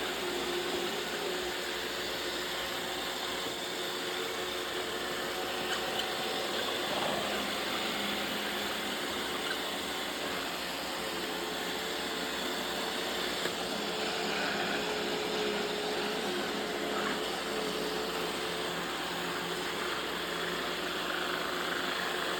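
Roomba robot vacuum running: a steady motor whir with a faint, even whine.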